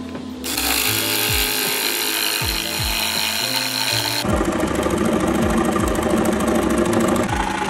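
HART jigsaw cutting through a cardboard concrete form tube, running steadily. About four seconds in the sound changes abruptly to a coarser, rapid chatter. Background music with a steady beat plays underneath.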